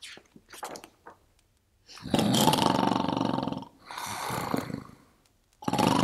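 A woman imitating loud, exaggerated snoring: a long rattling snore about two seconds in, a softer breath out, then another loud snore near the end.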